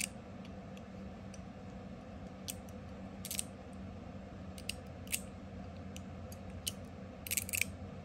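Sharp metallic clicks from a copper-and-stainless 'Top D' fidget being worked in the hand, as its post slides along the track and snaps into its detent-ball stops. About a dozen irregular clicks, a few close together near the end, over a faint low hum.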